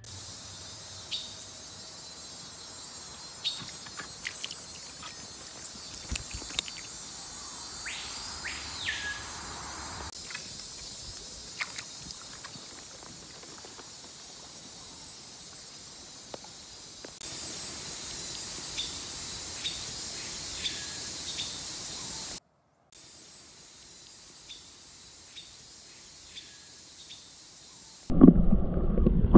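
Tropical swamp-forest ambience: a steady high insect drone with scattered bird whistles and calls. Near the end a loud low rumble takes over.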